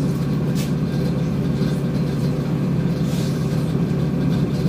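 Electric commuter train heard from inside the carriage as it runs slowly along a station platform: a steady low hum and rumble. There are two brief faint hisses, about half a second in and about three seconds in.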